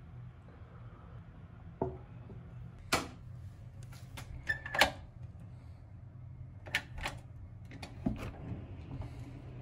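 Scattered sharp knocks and clicks, about eight in all, over a steady low hum, as shoes are handled and put on in a small tiled entryway by the front door; one knock about halfway through carries a brief high squeak.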